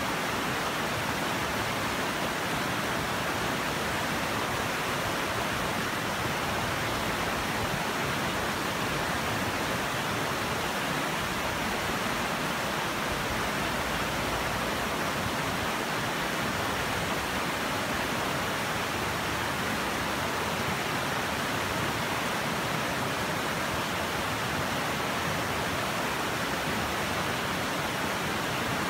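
Shallow, rocky river flowing fast over stones and small rapids: a steady, unbroken rush of water.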